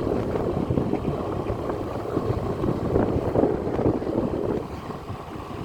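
Wind buffeting the microphone: a loud, uneven rumble.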